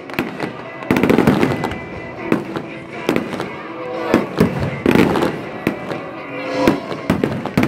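Fireworks display: aerial shells bursting in a rapid series of sharp bangs and crackles.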